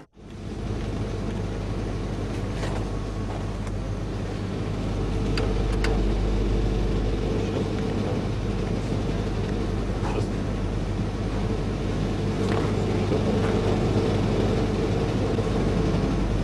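Steady low hum of a supermarket's refrigerated display cases, with a few faint clicks as plastic food tubs are handled.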